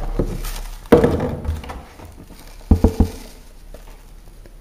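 Washing powder poured and shaken out of its packet into a washing machine's detergent drawer: a rustling pour starts about a second in and fades. Three quick knocks follow near three seconds in.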